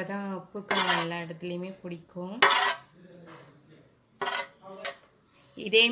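Steel spoon clinking and scraping against a steel tray while batter is spooned over a spiral-cut potato on a skewer. There are a few sharp clinks, the loudest about a second in and about two and a half seconds in, with lighter taps near the end.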